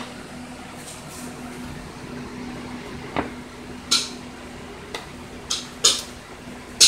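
Kitchen knife knocking and clicking against a plastic plate as a glazed pound cake is sliced: a handful of short, sharp clicks, most of them in the second half, over a faint steady hum.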